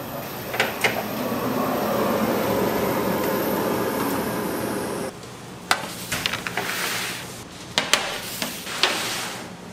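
A steady machine hum with two sharp clicks early on, cut off abruptly about five seconds in; then scattered knocks and clatters with short hissing bursts.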